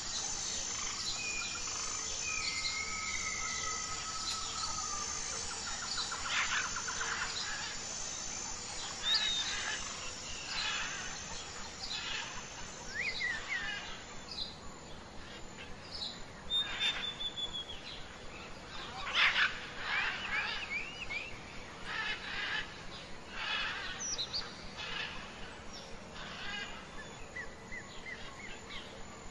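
Mixed birdsong: many different birds chirping and whistling in short, varied calls, with a steady high insect trill through the first six seconds.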